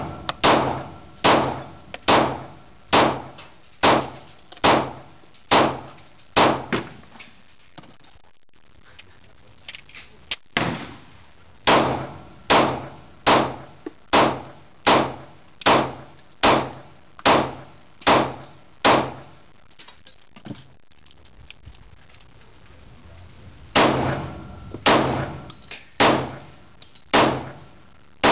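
Handgun shots fired at a steady pace of a little over one a second, in three strings split by pauses of a few seconds, each shot sharp with a short ringing tail.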